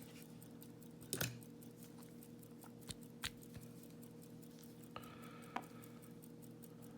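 A few sharp, light metallic clicks and clinks from an Abus 72/40 padlock and picking tools being handled, one followed by a brief ringing tone, as the lock is worked on to remove its core. A faint steady hum sits underneath.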